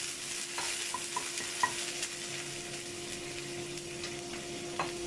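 Water sizzling and bubbling in a hot wok over garlic and ginger fried in oil, with a steady hiss. A wooden spatula stirs and taps against the pan a few times in the first two seconds and once more near the end.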